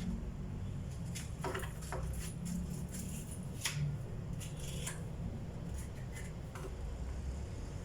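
Scattered small scrapes and clicks from hand work on a table, over a low steady hum.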